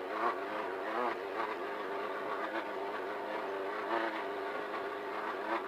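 Engine of a Class 1500 off-road race car running steadily at racing speed, heard from inside the cockpit, its pitch wavering slightly up and down.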